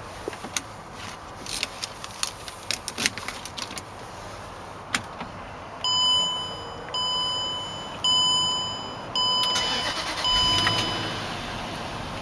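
Keys jangling and clicking at the ignition, then an electronic warning chime sounding five times about a second apart. Near the end the 2006 Range Rover's V8 cranks, catches and settles into a low idle.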